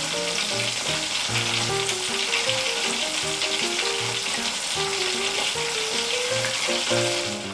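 Battered banana slices deep-frying in a small pot of hot oil: a steady sizzling hiss, with background music playing underneath.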